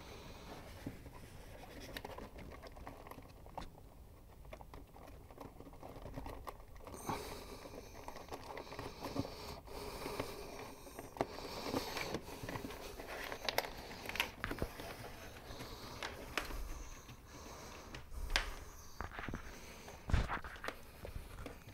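Rustling and scattered small clicks as a wire is handled and threaded through plastic zip ties along a golf cart's floorboard, with a louder thump about twenty seconds in.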